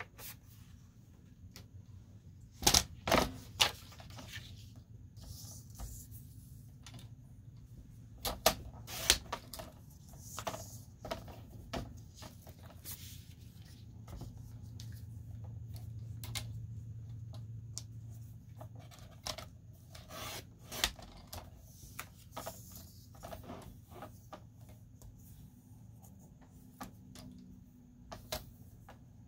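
Paper and a plastic paper trimmer handled on a tabletop: paper sliding and rubbing, with scattered clicks and knocks, the sharpest in a cluster about three seconds in, a pair near nine seconds and one near twenty-one seconds.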